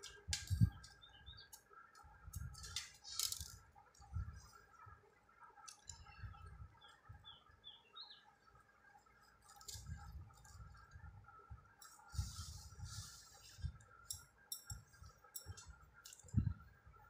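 Hands handling and cutting metallic gota ribbon on cloth, heard as soft rustles, irregular light thumps and sharp clicks. A small bird chirps a few short notes in the background, about a second in and again around seven seconds in, over a faint steady hum.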